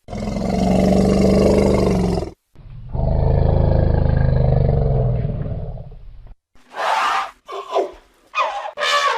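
Elephant roaring: two long, low roars, the second about three seconds long, followed by a few short calls that bend up and down in pitch near the end.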